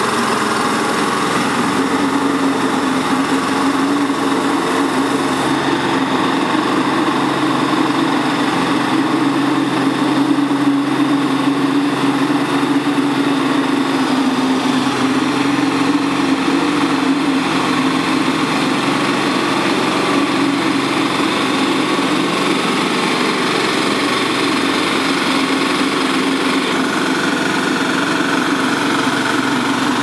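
The 13 hp diesel engine of a mini crawler air-blast sprayer running steadily under load, with the rush of its fan blasting spray mist.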